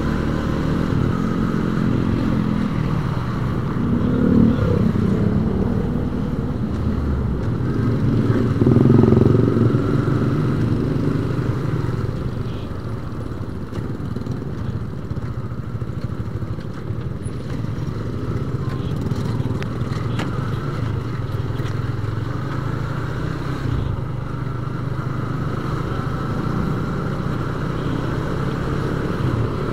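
Yamaha Vixion motorcycle's single-cylinder four-stroke engine running while riding in traffic, with rushing air. The engine opens up and grows louder about 4 seconds in and again about 9 seconds in, then settles to a steady cruise.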